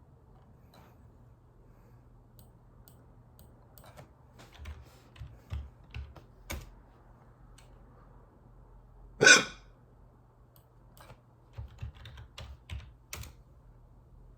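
A person hiccuping: one loud, short vocal hiccup about nine seconds in. Faint clicks and soft thumps come in small clusters before and after it.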